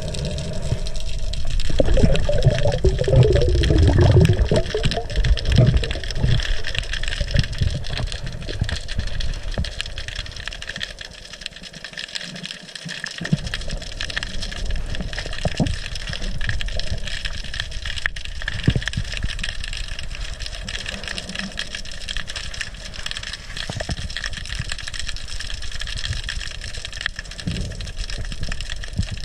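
Underwater sound picked up by a diver's action camera: water rushing and bubbling as the diver goes under, for the first several seconds, then a steady underwater hum with a few faint clicks.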